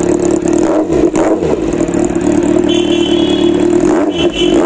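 Kawasaki Z800 inline-four engine running through an aftermarket SC-Project exhaust, idling with short throttle blips about a second in and again near the end.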